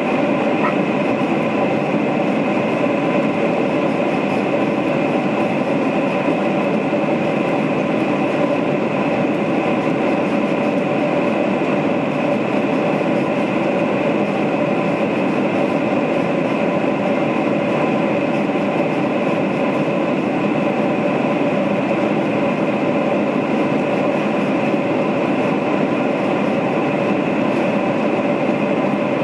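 Steady cabin noise of a Boeing 747-400 climbing after take-off: the engines running at climb power and air rushing past the fuselage, with a few steady whining engine tones on top.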